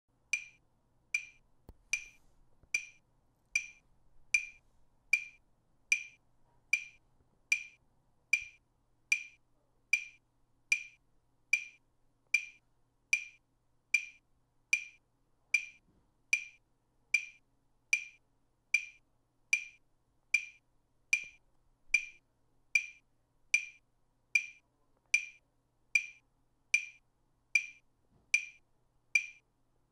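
A metronome-style click track: a single sharp tick about every 0.8 seconds, around 75 beats a minute, evenly kept throughout, setting the tempo for the exercise.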